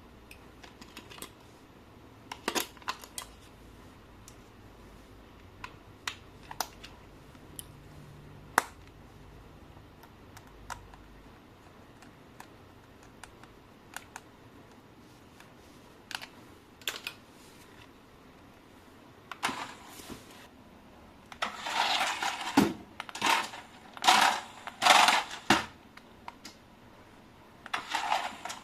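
Plastic parts and packaging being handled: scattered sharp clicks and taps, then several longer bursts of rustling and crinkling in the last third.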